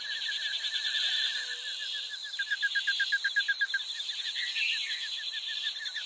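Outdoor animal chorus: a fast, even train of short chirps, about eight a second, over a steady high-pitched buzz. The chirping weakens after about four seconds.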